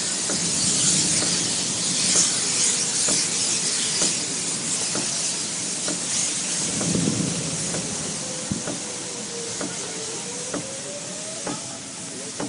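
Steady hiss of road and wind noise inside a moving car, with scattered light ticks and a faint tone that wavers upward in the second half.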